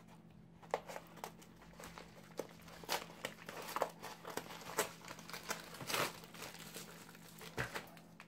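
Scissors cutting through a plastic mailing bag, with irregular snips and crinkling of the plastic as it is held and turned.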